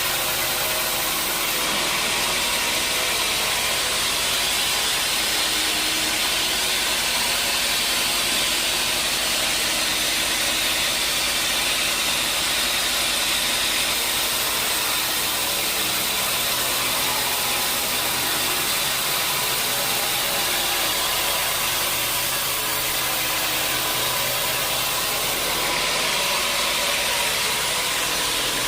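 Sawmill machinery running steadily: a machine's even hum under a constant high hiss, without pauses or impacts.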